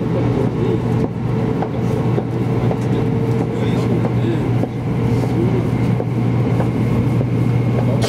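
Steady running noise inside the passenger cabin of an E2 series Shinkansen travelling on the line: a constant low hum under an even rush of noise, with faint passenger chatter in the background.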